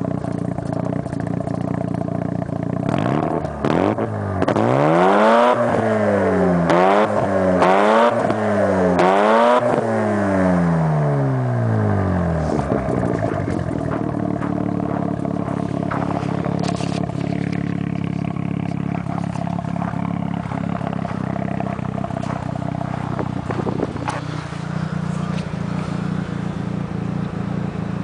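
1992 Mazda RX-7 FD3S's twin-turbo rotary engine heard through its Kakimoto exhaust, idling. From about four seconds in it is revved up and let fall several times in quick succession, then it drops back to a steady idle.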